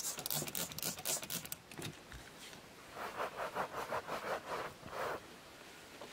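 A cloth scrubbing a carpet, wiping up a soiled spot so no smell remains. It opens with a quick run of sharp, scratchy strokes, and from about the middle there is a steady back-and-forth rubbing of about four strokes a second for a couple of seconds.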